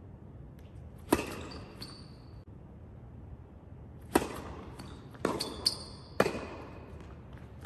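Tennis ball impacts on a hard court. There is a single ball bounce about a second in. The serve is struck sharply about four seconds in, followed by a quick run of racket hits and bounces as the rally starts, with short high squeaks alongside some of them.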